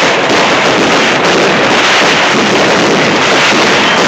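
Aerial fireworks display at close range: a dense, unbroken barrage of crackling and bursting shells, very loud and with no let-up.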